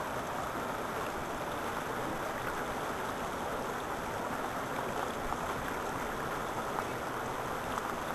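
Shallow mountain river rushing over and around boulders: a steady, even rush of water.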